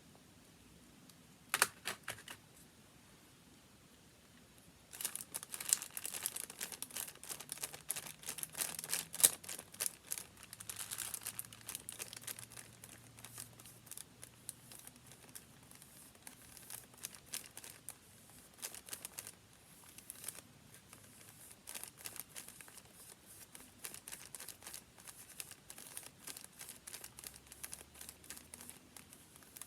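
Paper being handled close up: crinkling and rustling. A single sharp snap comes about a second and a half in. From about five seconds in there is a dense run of crackling, and after that the crackles come in sparser bursts.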